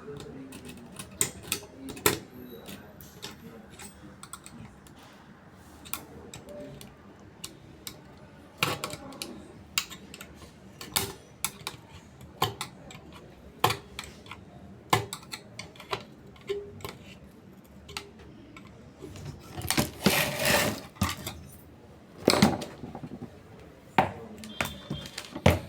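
Irregular sharp clicks and clatter of small hard objects being handled, with a longer scraping, rustling stretch about 20 seconds in.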